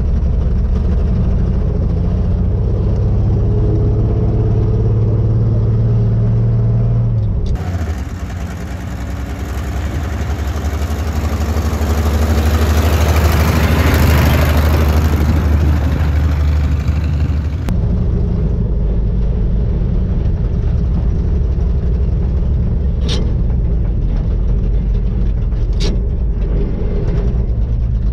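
A 1956 Chevrolet flatbed truck's 235 straight-six running while the truck is driven, heard from inside the cab. About a third of the way in it is heard from outside as the truck drives past, swelling and then fading, before returning to the in-cab sound. Two sharp clicks come near the end.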